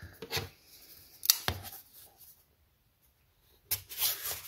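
A product box and its packaging being opened and handled by hand: a few sharp clicks and scrapes in the first second and a half, then a longer rustle near the end.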